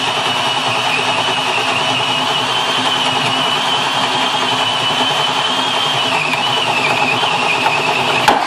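Ryobi One+ 18V cordless drill on a 1.4 Ah battery, set on one, boring a 25 mm spade bit into hardwood: a steady high motor whine over the bit cutting wood. The whine dips slightly in pitch under load a little after six seconds in, and the drill stops just before the end.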